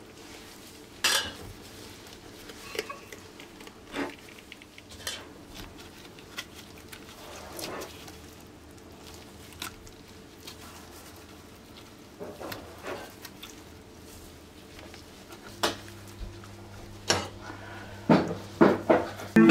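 Kitchen dishes and utensils knocking and clinking now and then, about a dozen separate strikes with a few quicker ones near the end, over a faint steady hum.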